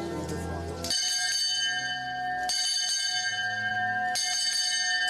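A small bell rung from a wall pull, struck three times about a second and a half apart, each strike ringing on.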